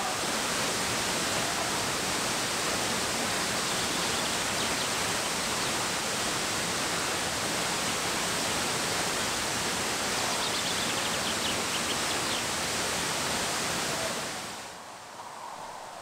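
A tall plunge waterfall falling into its pool: a steady, dense rush of falling water that drops away sharply near the end.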